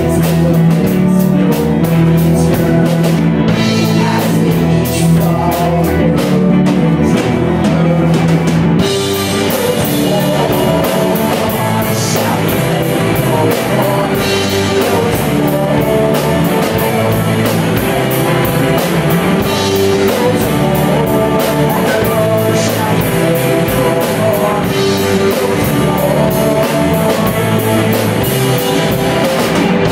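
Live rock band playing: electric guitars, bass guitar and drum kit. About nine seconds in, the band moves from a held low note and lighter playing into a full, driving section with the cymbals crashing.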